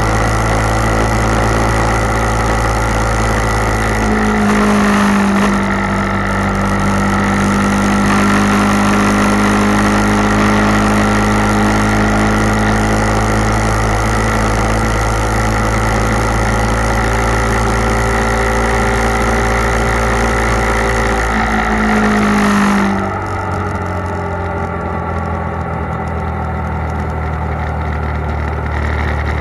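Motorcycle engine running at road speed with wind rushing past. The engine note dips and picks up again about five seconds in. Near the end it falls, and the wind noise drops away as the bike slows.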